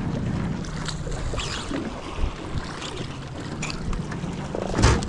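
Wind buffeting the microphone and choppy water moving against a small aluminium boat, under a steady low hum. A quick cluster of knocks and clicks comes near the end.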